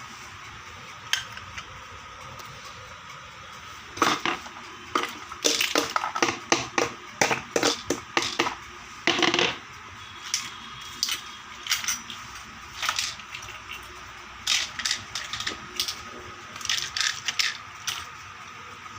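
Miniature toy kitchenware being handled: a series of light clicks and clatters in two busy spells with a pause between, over a faint steady background hum.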